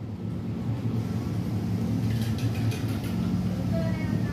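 Steady low machine hum, the background drone of a convenience store, with a few faint ticks about two seconds in.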